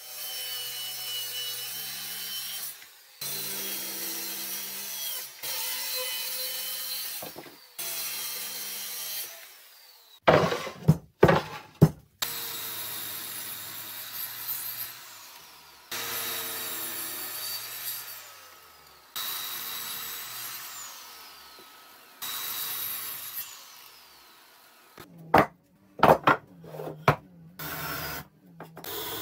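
Electric saws cutting wood in a string of short cuts: a circular saw run along a guide rail and a sliding mitre saw, each motor running through a cut and then winding down. Loud sharp knocks come in a cluster about ten seconds in and again near the end.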